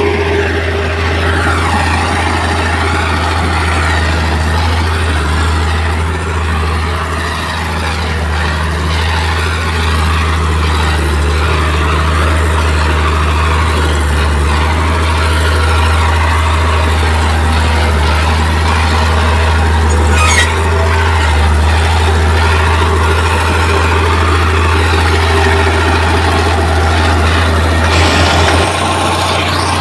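Heavy diesel engine of earthmoving machinery running steadily, with a brief high squeak about two-thirds of the way through.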